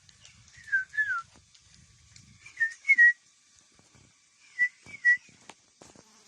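A bird singing clear whistled notes in pairs, three two-note phrases about two seconds apart, the first pair sliding down in pitch.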